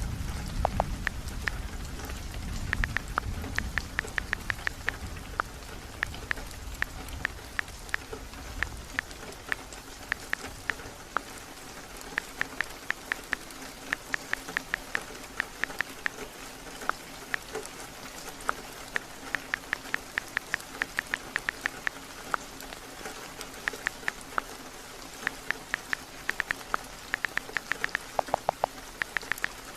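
Heavy rain falling steadily on a roof, with the low rumble of thunder dying away over the first several seconds. Runs of short, sharp ticks sound over the rain throughout.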